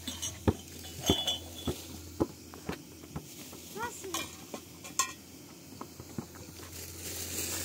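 A utensil knocking and clinking against a pot or dish, about two strikes a second and then more sparsely. A cat meows briefly about four seconds in.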